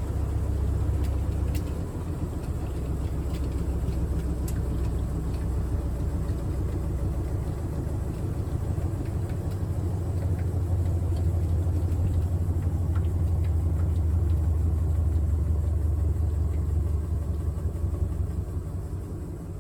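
GE top-load washing machine running with its lid open, a steady low rumble that eases off near the end.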